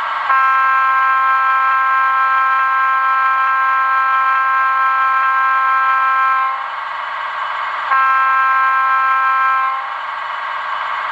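Sampled Budd RDC air horn from a ZIMO MX649 sound decoder, played through a tiny sugar cube speaker in an N scale Kato RDC-2: one long chord blast of about six seconds, then a shorter one of about two seconds. The decoder's diesel engine sound runs underneath between the blasts.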